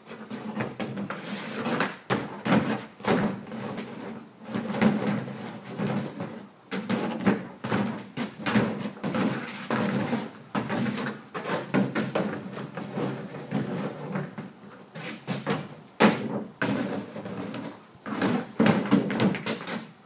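A hard plastic kiddie pool being shoved, lifted and dropped by a dog on concrete: a string of irregular scrapes, bumps and knocks with no steady rhythm.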